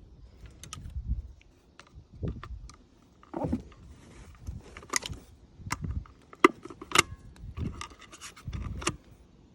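Small screwdriver scraping and prying at the plastic housing of a Mercury boat remote control, with scattered sharp clicks and scrapes, the loudest clicks about halfway through.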